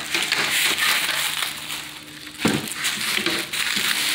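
Bubble wrap and plastic packaging crinkling and rustling as a plastic mesh grille is handled on it, with a louder crackle about two and a half seconds in. A faint steady hum lies underneath.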